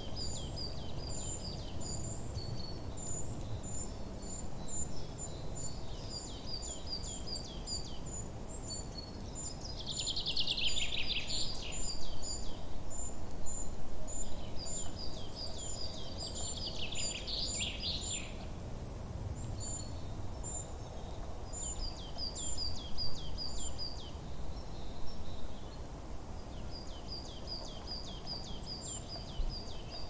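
Birds chirping: short high notes repeated in quick runs, with two louder, longer calls about ten and sixteen seconds in, over a steady low rumble.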